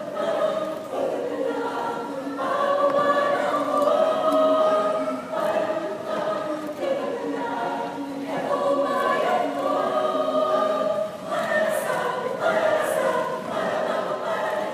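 A large mixed choir of men and women singing together in sustained chords, in phrases of a couple of seconds with short breaks between them.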